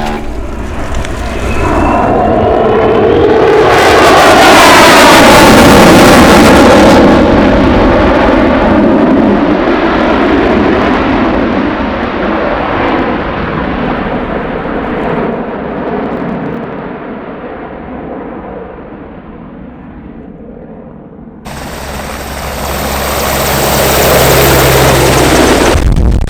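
Aircraft passing overhead: its engine noise builds to a loud peak as it goes by, drops in pitch, then slowly fades away. Near the end an abrupt cut brings in another loud aircraft engine sound with a high, steady whine.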